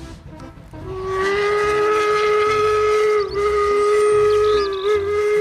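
Steam locomotive whistle blowing one long, steady blast that starts about a second in, wavering briefly twice.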